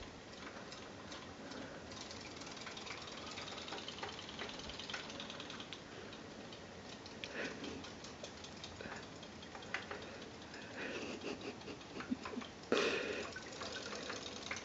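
Faint rapid ticking and rattling of battery-powered Zuru Robo Fish toys, their small motors flapping their tails as they swim in a sink of water, with scattered light clicks and one brief louder knock about thirteen seconds in.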